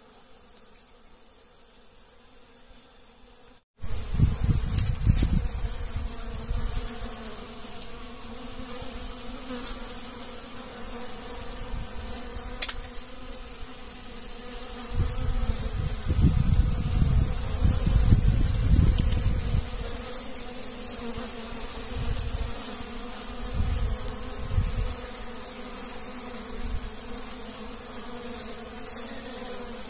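Africanized honeybees buzzing as they forage for pollen, a steady hum that starts abruptly a few seconds in. Bursts of low rumble come and go over the hum, loudest around the middle.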